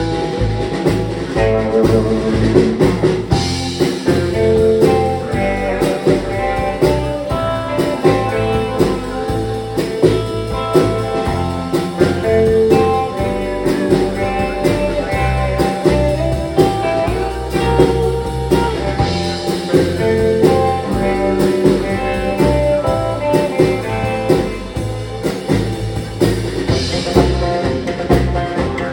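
Live band playing an instrumental: electric guitar lead melody over upright bass and drum kit.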